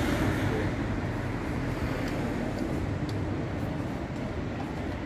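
Steady low rumble and hiss of city street noise, with a couple of faint clicks near the middle.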